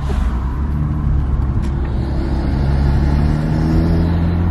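Hyundai Genesis Coupe 2.0T's turbocharged four-cylinder engine pulling under acceleration through a K&N cold air intake, its pitch climbing in the second half. The intake rush sounds like a whirlwind.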